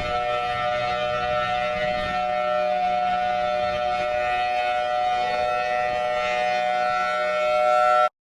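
Emergency alert alarm tone: a loud, steady chord of several pitches held for about eight seconds, then cutting off suddenly.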